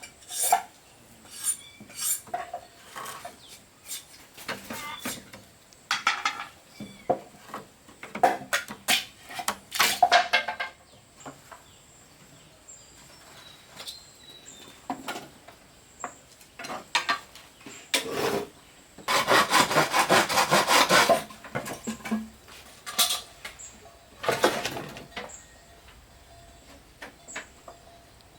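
A saw cutting bamboo in short, irregular bouts of strokes with pauses between. A longer, steady run of quick strokes comes about two-thirds of the way through.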